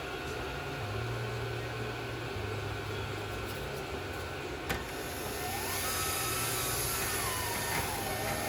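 Steady background motor hum with a single sharp click partway through, then a louder hiss with a whine that rises and falls in pitch over the last few seconds.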